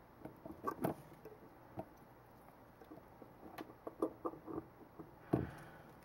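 Scattered light clicks and taps from handling a wire and an XT-60 connector held in a helping-hands clamp during soldering, with one louder knock about five seconds in.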